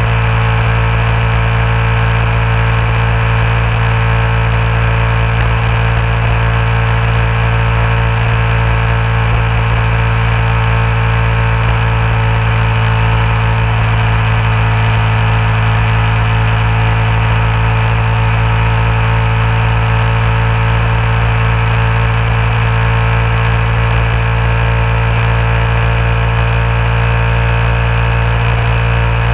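Vehicle engine running at a steady cruising speed on a highway: an even, unchanging drone with a strong low hum and road noise.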